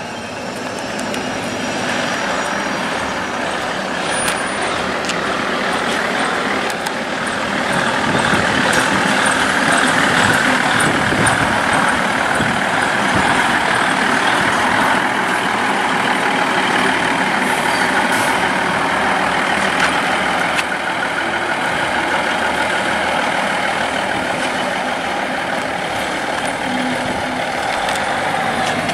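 DSB IC3 diesel multiple unit pulling away under power, its diesel engines running loud and steady. The sound builds over the first several seconds, then holds.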